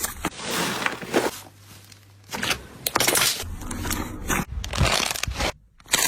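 Slime being squeezed and pressed by hand, giving irregular bursts of noise with a quieter stretch about a second and a half in.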